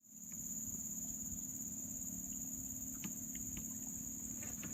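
Crickets or similar insects trilling in a continuous high-pitched shrill, with a lower steady hum beneath and a few faint clicks.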